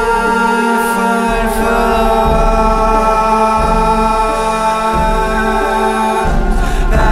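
Dark electronic music: layered, sustained chord tones over a slow low pulse, with a noisy swell near the end.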